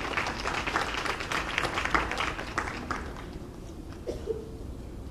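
A crowd applauding, a dense patter of many hands clapping that dies away about three seconds in.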